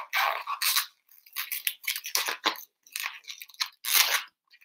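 Latex modelling balloon rubbed and twisted between the fingers, making a string of short, irregular rubbing noises as a small bubble is worked into shape.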